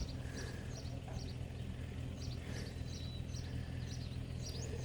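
Small birds chirping, many short high notes in loose groups, over a steady low rumble of outdoor background noise.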